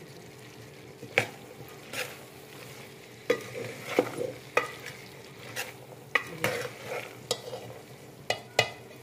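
A steel spoon stirring black-eyed beans in a metal cooking pot, clinking and scraping against the pot about a dozen times at an irregular pace, over a steady low background hiss.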